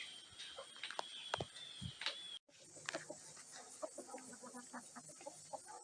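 Chickens clucking softly in short scattered calls, with a few light clicks. The sound breaks off abruptly about two and a half seconds in and picks up again with more clucking.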